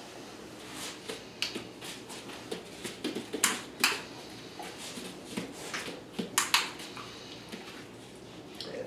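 Sharp clicks, the loudest in two close pairs a few seconds apart, among softer ticks and shuffling.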